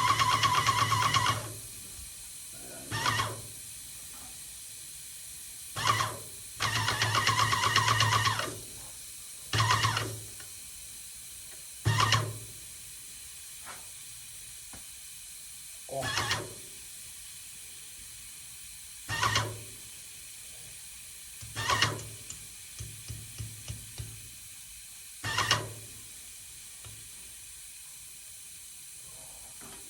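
Yokiji 120 airless paint sprayer's pump running in bursts, on a test run after repair: a longer run at the start and another about seven seconds in, then short pump strokes every few seconds, each about half a second long, as it tops up the pressure.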